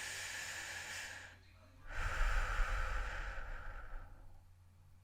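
Heavy human breathing: a shorter breath, a brief pause, then a longer, louder breath about two seconds in.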